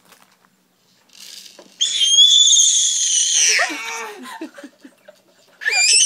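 A five-month-old baby boy screaming: one long, very high-pitched scream that drops in pitch and breaks into short sounds at its end, then a second high scream starting near the end.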